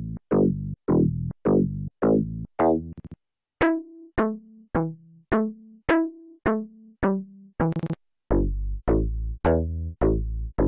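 Infected Sounds IGNITO software synthesizer playing bass presets: short, separate notes about two a second, each starting with a faint high click. The tone changes as the preset is switched, to a thinner sound about three and a half seconds in and to a fuller, deeper bass about eight seconds in.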